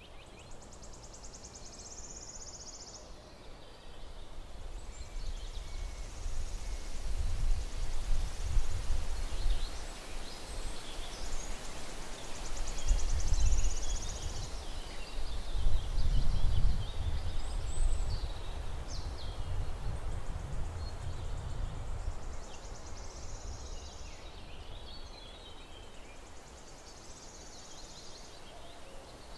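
Woodland ambience: small birds singing high up, with a fast trilling song that comes back about every twelve seconds, over a low rumbling noise on the microphone that swells through the middle and fades near the end.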